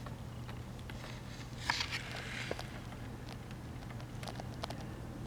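Faint steady low hum with scattered light clicks and taps, the sharpest about a third of the way in, as the radio and bench gear are handled.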